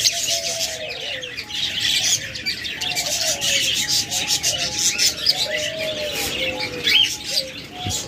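Many caged birds chirping and chattering without pause, with doves cooing underneath in short, low, repeated notes.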